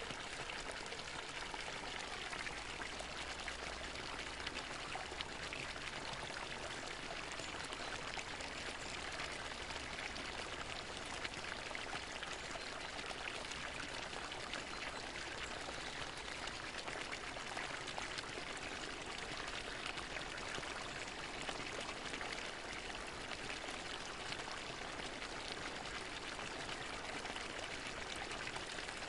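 Water fountain splashing, a steady, even rush of falling water.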